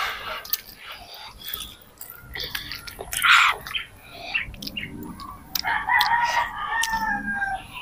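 A rooster crowing, ending in a long drawn-out call of about two seconds in the second half, with short clicks and taps throughout.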